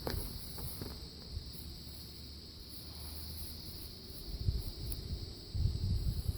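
Steady high-pitched insect chirring, with low rumbling thumps about a second in and again near the end.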